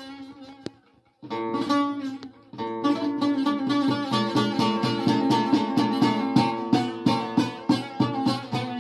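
Long-necked bağlama (saz) played solo in a Turkish folk tune: a chord dies away, the playing stops briefly about a second in, then picks up again as a quick, steady rhythmic strumming that runs on.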